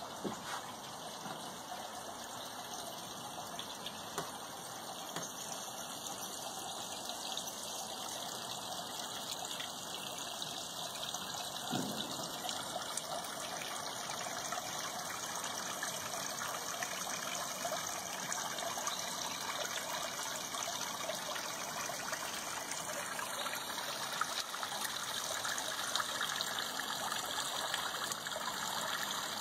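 Garden water fountain trickling steadily, water spilling from a watering-can spout into a basin, growing slightly louder toward the end.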